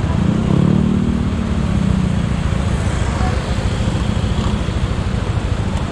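Yamaha NMAX scooter's single-cylinder engine running under way, with steady wind and road noise on the rider's microphone. The engine note is strongest in the first couple of seconds.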